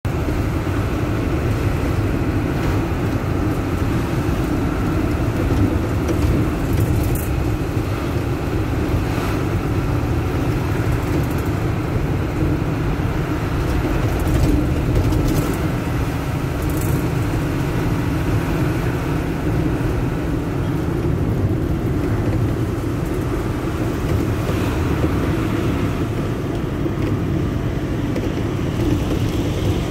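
Mitsubishi heavy truck's diesel engine running steadily as the truck drives, heard from inside the cab with road noise, and a few brief high clicks or hisses over it.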